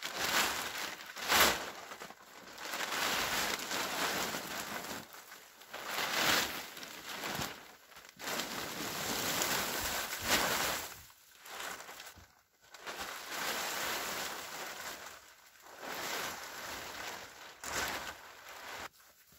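A snow-covered tarp being pulled and dragged off a machine: irregular rustling and crinkling of the tarp in uneven bursts with short pauses, with snow sliding off it.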